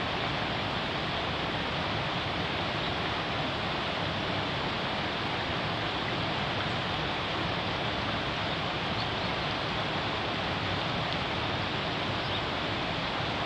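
River water rushing over rocks, a steady even rush with no break.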